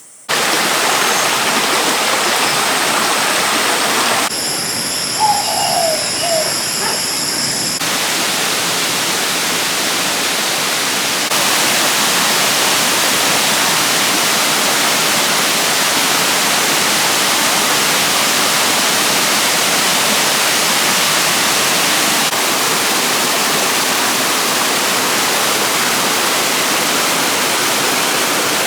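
Silvermine Waterfall: water pouring and splashing in a steady, loud rush. About four seconds in comes a quieter stretch of a few seconds with a high steady buzz over it.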